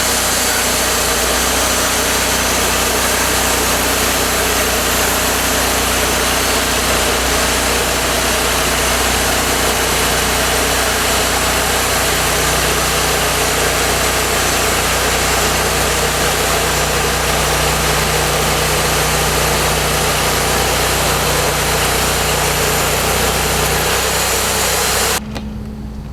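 Portable bandsaw sawmill running, its engine steady while the band blade cuts through the log with a loud, even hiss. About a second before the end the cutting noise stops suddenly, leaving the engine running alone and quieter.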